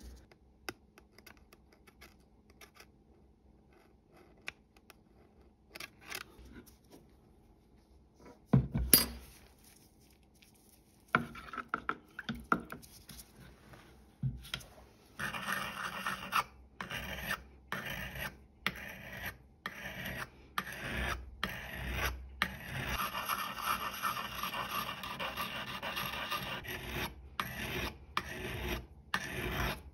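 A sharpening block rasping back and forth along the steel blade of a pair of Gardena secateurs, re-sharpening the blunt edge. A single loud knock comes a little under nine seconds in; the strokes start a couple of seconds later, short at first, then run close together in a steady rhythm.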